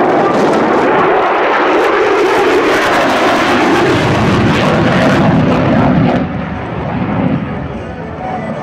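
F-22 Raptor's twin F119 turbofan jet engines, loud jet noise as the fighter flies past, dropping off abruptly about six seconds in.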